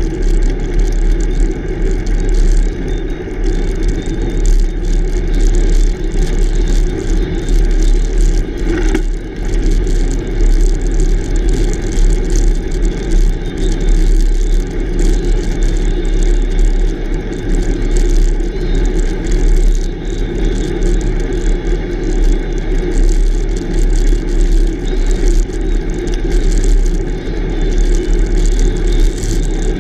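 Steady wind buffeting on the bicycle-mounted camera's microphone, with the front tyre rolling on coarse asphalt.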